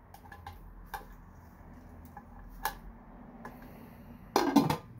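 Vintage Rival crock pot being handled: its plastic lid and stoneware crock knock and clink, a few light clicks and then a louder clatter near the end.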